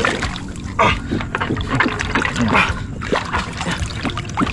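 Water splashing and sloshing as a large hooked fish struggles at the surface while it is being hauled out.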